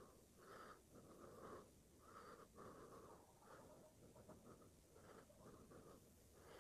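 Near silence, with only faint, indistinct background sound.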